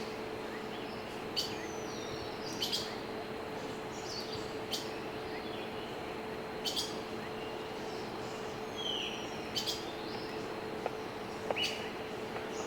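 Small songbirds chirping, from a bird-chirping sound track laid over the video: short sharp chirps and a few falling whistles every second or few. Under them is a steady outdoor hiss with a faint hum.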